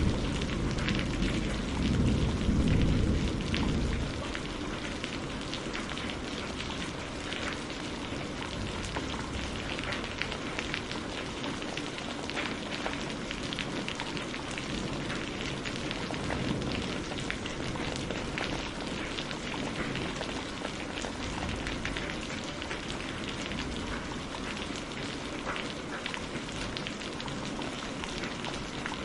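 Steady rain falling, an even hiss flecked with drop ticks. A low rumble of thunder dies away over the first few seconds.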